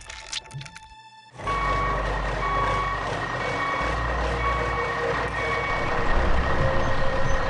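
Truck reversing: a backup alarm beeping steadily over a running engine, starting about a second and a half in.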